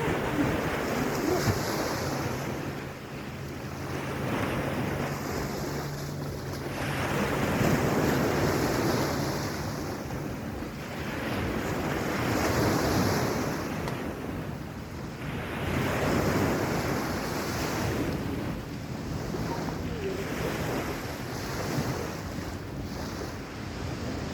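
Surf washing onto a sandy beach, swelling and falling back every few seconds, with wind buffeting the microphone. A faint low steady hum runs under it for stretches.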